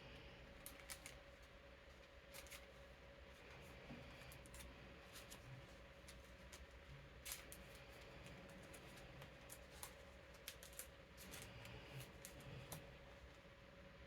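Faint handling of playing cards and plastic card sleeves: scattered light clicks and rustles as cards are slid into sleeves, over the steady hum of an electric fan.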